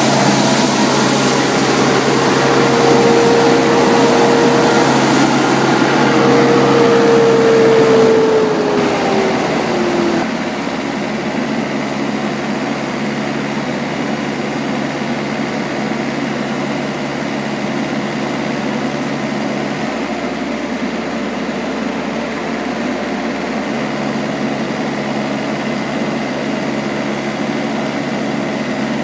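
Green Machine 636 compact street sweeper running, with a strong steady whine over the engine. About eight seconds in, the whine falls in pitch and winds down over two seconds, and the machine then runs on more quietly at a steady pitch.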